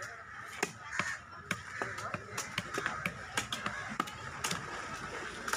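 Knife blade knocking and scraping against a wooden chopping block while filleting a trevally, a string of sharp, irregular taps about twice a second.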